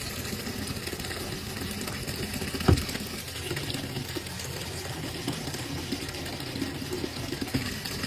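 Washing machine running a wash cycle, its drum turning and sloshing sudsy water, with one sharp knock about two and a half seconds in.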